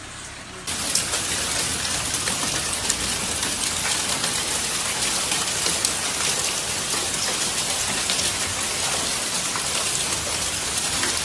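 Volcanic lapilli and ash raining down, a dense steady patter of countless small impacts like heavy rain, starting abruptly about a second in.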